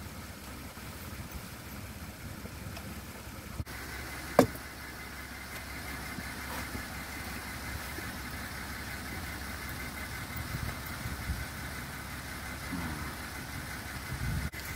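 Ford F-150 pickup's engine idling steadily, a low even rumble, with one sharp click about four seconds in.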